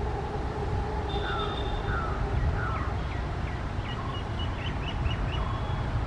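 Steady low rumble of two approaching trains, a WDP4B diesel locomotive and a WAP4 electric locomotive, each hauling passenger coaches. Birds chirp over it: a few short falling chirps in the first half, then a quick run of chirps past the middle.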